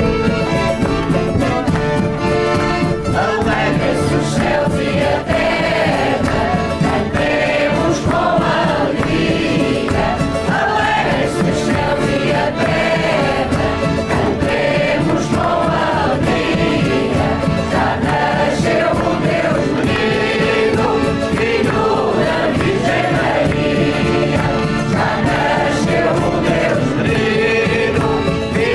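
A choir singing a song, several voices together at a steady loudness throughout.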